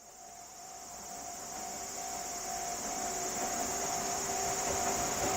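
Japanese railway level-crossing warning bell ringing with its two steady electronic tones, over a steady high drone of insects, growing steadily louder.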